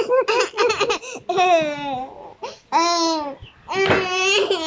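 Playful laughter and babbling between a toddler and an adult: a quick run of laughter, then three long, high, wavering cries.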